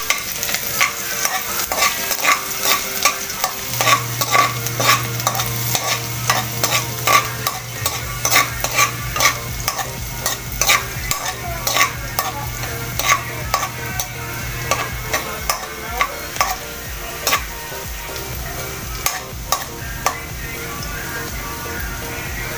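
Chopped ginger sizzling in hot oil in a wok, stirred with a metal slotted spatula that scrapes and clicks against the pan about twice a second; the stirring thins out near the end while the sizzle goes on.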